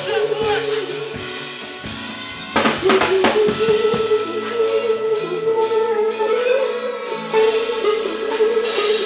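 Live band playing an instrumental passage, with the drum kit keeping a steady beat and a quick run of drum hits about three seconds in, over a sustained melodic line.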